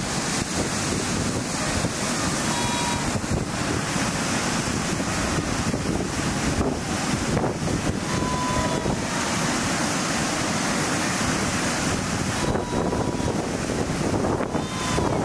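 Wind blowing across the microphone: a steady, loud rushing rumble, with a few faint, short high notes.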